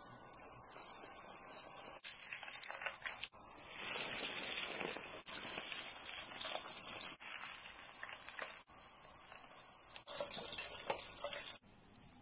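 Hot oil sizzling as a breaded crab-meat patty deep-fries, with sudden jumps in level along the way; the sizzle falls away shortly before the end.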